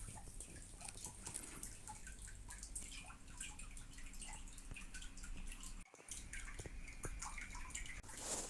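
Faint, scattered small clicks, taps and rustles of hands handling a keyboard and its packaging during unboxing, over a low steady hum, with a brief drop-out near six seconds.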